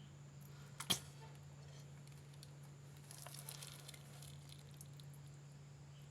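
Slime being handled: one sharp click or pop about a second in, then a second or so of faint sticky crackling in the middle.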